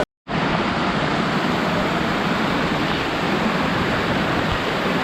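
Waterfall's falling water making a loud, steady rush, broken by a split-second dropout at the very start where the audio cuts out.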